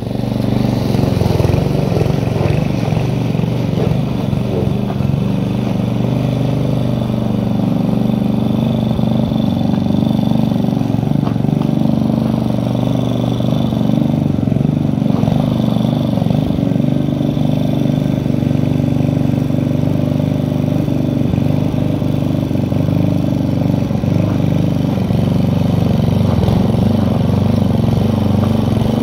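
Petrol walk-behind lawn mower engine running steadily at working speed as the mower is pushed through long grass.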